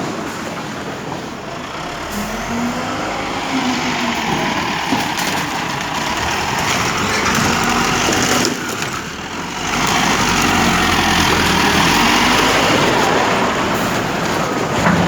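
A large engine running: a steady, dense noise that drops briefly just before the middle, then comes back louder.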